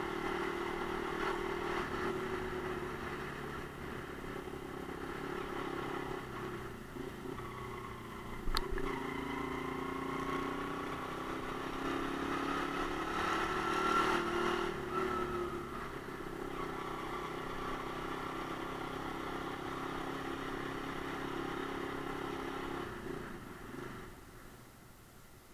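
Romet Ogar Caffe 125's single-cylinder 125 cc engine running under way, its pitch rising and falling as the bike speeds up and eases off. A single sharp click comes about eight and a half seconds in, and the engine note dies down near the end as the bike slows.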